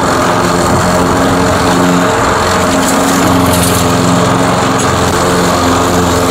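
Briggs & Stratton 550 series 158cc single-cylinder mower engine running steadily at mowing speed, its pitch shifting slightly now and then. It runs smoothly on a new spark plug that replaced a badly fouled one.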